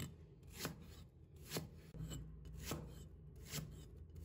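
Cleaver slicing through a stalk of Chinese leek onto a wooden cutting board: five separate knife strokes, each a short knock, a little under a second apart.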